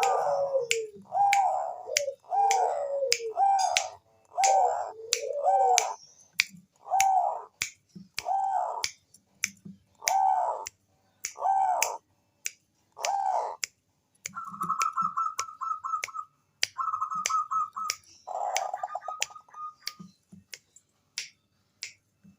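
Zebra dove (Bangkok-type perkutut) calling: a run of short arched coos about one a second, then from about two-thirds in, fast trilling runs of higher, even notes. Sharp clicks sound between the calls throughout.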